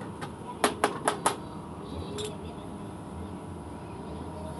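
Sharp metallic knocks of a hand tool striking the sheet-metal sill and floor of a Daihatsu Charade G11 body: about five quick strikes in the first second and a half, then one more about two seconds in.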